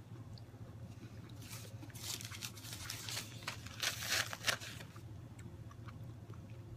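Paper napkin rustling and crinkling as it is pressed against the mouth, in a run of short bursts loudest about four seconds in, over a faint steady low hum.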